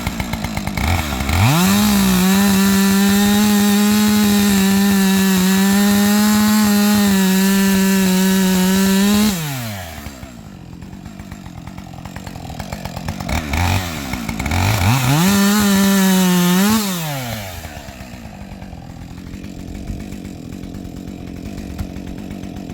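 Husqvarna two-stroke chainsaw idling, then revved to full throttle and held steady for about eight seconds before dropping back to idle. A second, shorter burst of throttle follows about five seconds later, then it idles again.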